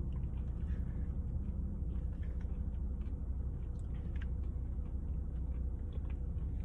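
Steady low rumble of a car's interior with the engine running, with faint chewing and small clicks of a spoon scraping oatmeal from a paper cup.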